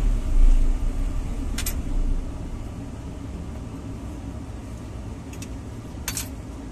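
The Isuzu four-cylinder diesel of a Sany mini excavator being switched off: it runs for about two seconds, then dies away, leaving only a quieter low hum. Two short clicks are heard, one around the shutdown and one near the end.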